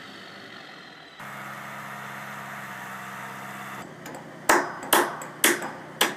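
A Mack dump truck's diesel engine running steadily as it tips its load, then four ringing hammer blows on a steel I-beam frame, about half a second apart, starting in the last second and a half.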